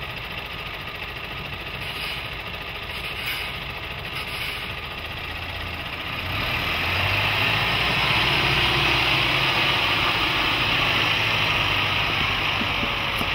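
Mercedes-Benz Unimog U 5023's four-cylinder diesel engine running at low speed, then growing louder about six seconds in as it takes on load climbing a steep 80% ramp.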